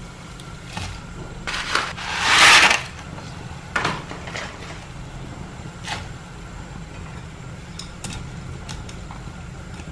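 Dried noodle blocks dropped into a pot of boiling water with a short splash about two seconds in, followed by a few light knocks of chopsticks against the pot as the noodles are stirred, over a steady low hum.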